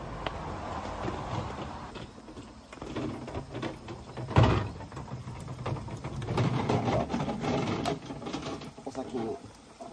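Footsteps on stone and the handling of empty plastic water jugs at a spring: knocks and scrapes of the jugs, the loudest a sharp knock about four seconds in as a jug is set down on the stones.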